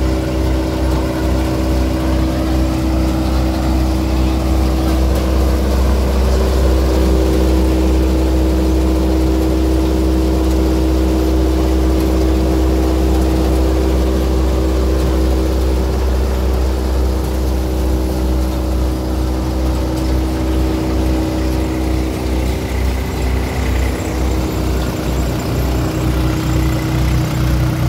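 Swaraj 735 FE tractor's three-cylinder diesel engine running steadily under load, driving a groundnut thresher whose drum and sieves whir along with it. The engine's low throb comes through more plainly near the end.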